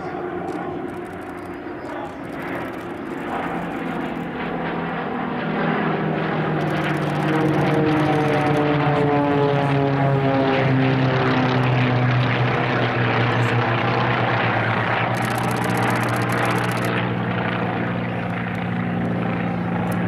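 A formation of a P-51 Mustang, T-28 Trojan, Aero Commander and F-86 Sabre passing overhead. The propeller engine drone grows louder, and its tones slide down in pitch as the aircraft go over, then settle into a steady drone as they move away.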